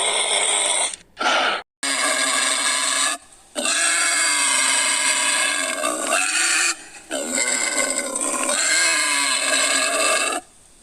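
Loud animal calls, several long pitched cries of one to two seconds each, broken by short abrupt gaps.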